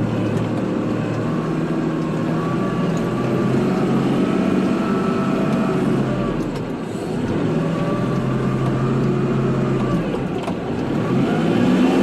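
Kubota tractor's diesel engine running under load while plowing snow. Its pitch dips and climbs back about three times as engine speed changes.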